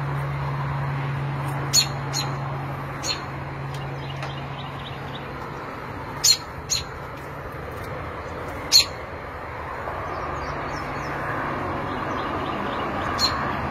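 American robin giving short, sharp alarm calls, about seven of them at irregular intervals, as a parent defends its nest of hatchlings. A few fainter chirps come near the end.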